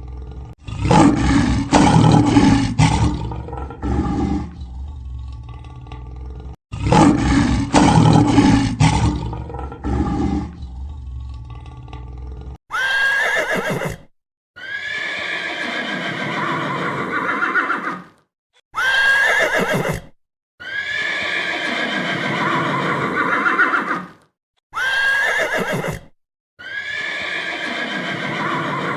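An animal's deep, rough roar sounds twice. A horse then whinnies, the same call repeated three times with short silences between.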